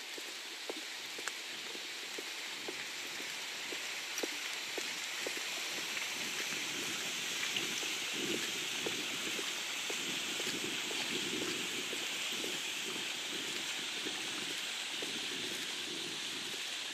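Steady outdoor hiss with footsteps, about two steps a second, through the first several seconds. A lower, rougher rumble comes in about halfway through.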